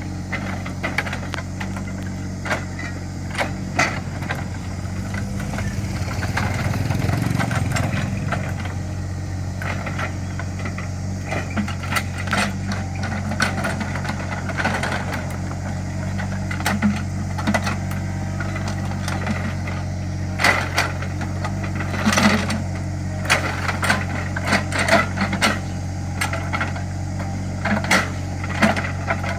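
Small CAT excavator's diesel engine running steadily, louder for a couple of seconds about six seconds in. Sharp knocks and rattles come thick and fast in the second half.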